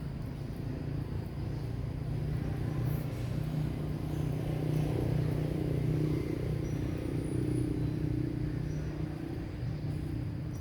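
A motor vehicle's engine running, a steady low hum that grows somewhat louder through the middle and then eases.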